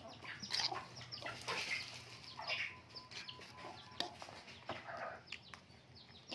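Two puppies eating rice off a ceramic plate: wet chewing and smacking, with many short, quick chirp-like sounds that fall in pitch.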